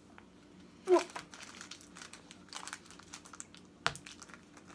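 Crinkling of a chocolate wrapper being unwrapped by hand, a scatter of small crackles. A short vocal sound about a second in and a sharp click near the end.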